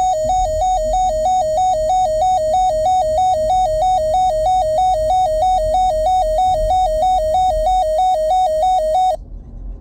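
Weather radio receiver's electronic alert alarm: a warbling tone that flips between two close notes about three times a second, then cuts off suddenly about nine seconds in. It signals an incoming alert, here ahead of a severe thunderstorm watch message. A low vehicle rumble runs underneath.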